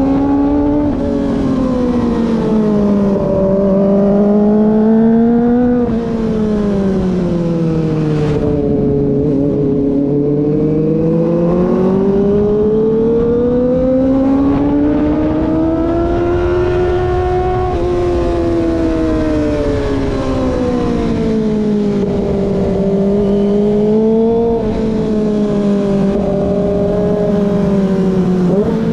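Kawasaki ZX-25R's 250 cc inline-four engine under way while cruising, its pitch rising and falling smoothly with the throttle in several long swells. There is a sudden drop in pitch about six seconds in and a quick rise again at the very end.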